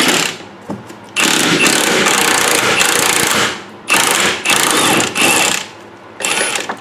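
Power ratchet on a deep socket running in several bursts, the longest about two seconds, spinning off the nut of a steering rack mounting bolt.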